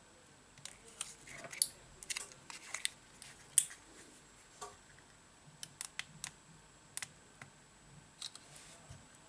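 Irregular light clicks and taps of a Samsung Galaxy J7 (2017) replacement display module being handled and fitted against the phone's housing. The two loudest clicks come about one and a half and three and a half seconds in.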